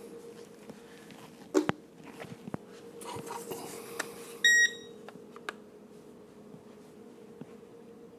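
A knock about one and a half seconds in, then a single short electronic beep about four and a half seconds in as the Protocol Vento toy drone's remote is switched on, over a faint steady hum.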